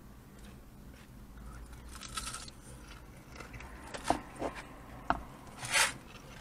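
Close-up eating sounds: biting and chewing battered fried fish and shrimp, with a few sharp clicks and two short noisy bursts, the louder one near the end.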